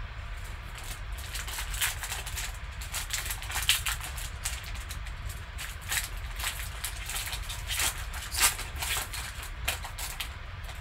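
Foil wrapper of a Panini XR football card pack crinkling and crackling in gloved hands as it is torn open. The crackles are irregular, with the loudest near 4 s and 8.5 s.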